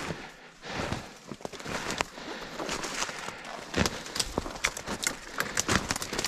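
Footsteps through dry leaves and brush, an uneven run of crackles and snaps.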